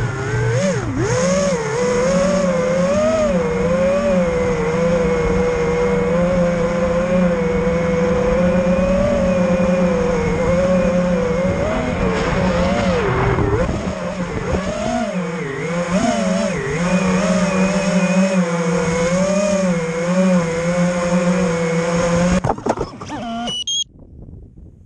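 FPV quadcopter's electric motors and propellers whining, the pitch wavering up and down as the throttle changes. Near the end the whine breaks up and cuts out as the drone comes down in the snow.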